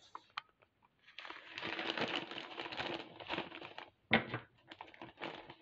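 Clear plastic bag of glass seed beads handled and squeezed: plastic crinkling with the small beads shifting inside. There is a sharp click about four seconds in, followed by lighter rustling.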